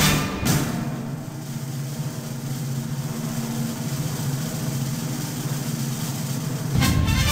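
Honda motocross bike's engine running at a steady speed. Swing background music cuts out just after the start and comes back near the end.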